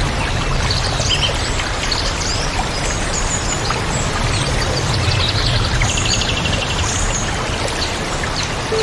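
Waterfall rushing steadily, with many birds chirping and whistling over it.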